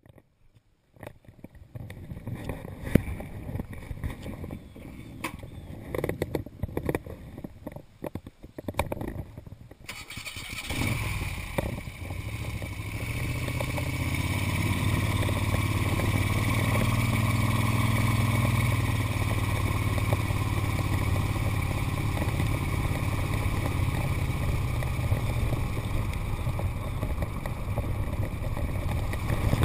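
Scattered knocks and rustles of handling for about ten seconds, with one sharper knock near the start. Then a 1976 Moto Guzzi Convert's V-twin engine starts and settles into a steady running note as the motorcycle rides off along a gravel road.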